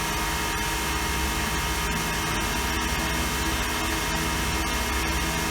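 CNC mill running steadily while boring holes in a cast saw carriage: a constant spindle hum with several steady tones under an even hiss, and faint scattered ticks.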